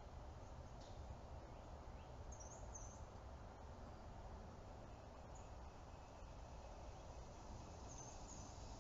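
Faint steady background noise with a low hum, and a few brief high chirps about two and a half seconds in and again near the end.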